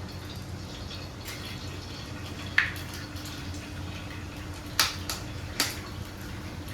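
Kitchen cooking sounds: three sharp knocks of utensils or cookware, a couple of seconds apart, over a steady low hum.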